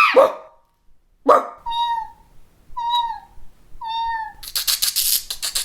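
A girl's voice imitating animal calls: three short, high, pitched calls about a second apart, each dipping slightly in pitch, followed near the end by a fast run of clicks.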